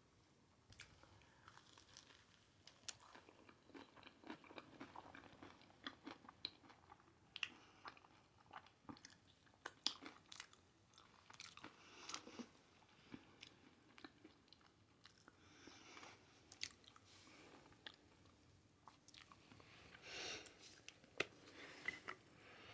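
A person chewing a hot Cheeto–crusted fried pickle: soft, irregular crisp crunches and mouth sounds, a little louder near the end.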